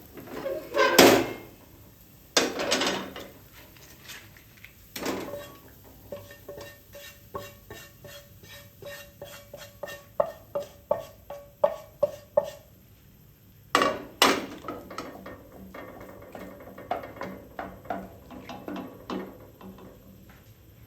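Kitchen clatter of cooking utensils knocking and scraping against pots and pans, in irregular clanks with a run of quick taps about three a second partway through.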